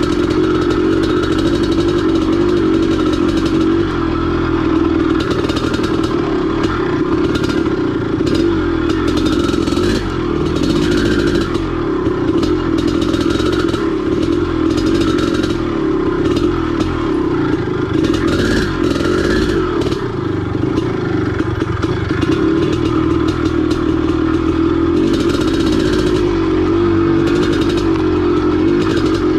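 Dirt bike engine running while riding, its revs rising and falling continually with the throttle, with frequent rattling knocks.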